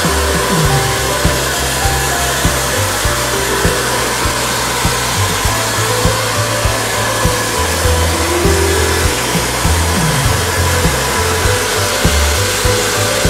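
Handheld hair dryer running steadily, blowing a wet toy poodle's coat dry, with background music and a bass line underneath.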